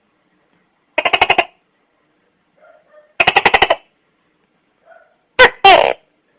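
Tokay gecko calling: two fast clicking rattles of about eight pulses each, then a two-part "to-kay" call near the end, a short note followed by a longer one.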